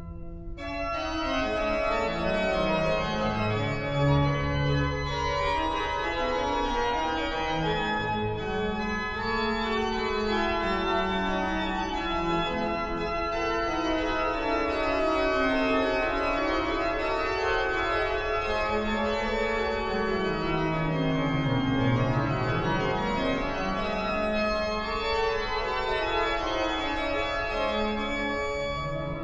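The Great Silbermann pipe organ of 1714 playing a full-voiced passage: held chords with moving lines over a bass that sinks low and climbs back about two-thirds of the way through.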